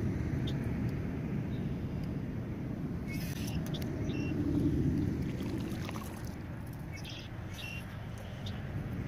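Low, steady outdoor rumble that swells a little about halfway through, with a few faint high chirps and light clicks.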